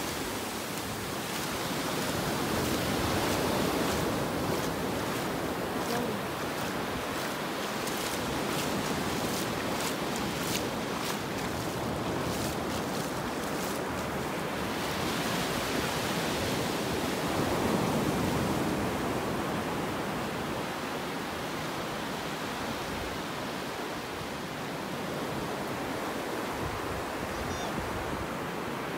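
Small ocean waves breaking and washing up a flat sandy beach: a steady rushing surf that swells and eases as the waves come in.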